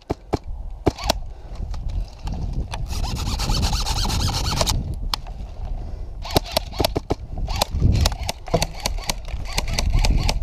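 Airsoft gunfire: scattered sharp snaps of shots, coming in quick strings in the second half. About three seconds in there is a harsh hissing squeal lasting nearly two seconds, over a steady low rumble.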